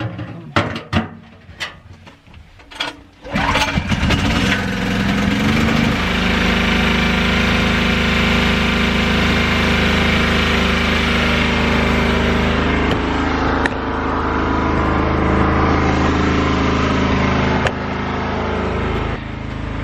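Centurion 3250 portable gasoline generator being started: a few knocks and clatters, then the engine catches about three seconds in. It picks up speed briefly and settles into a loud, steady run.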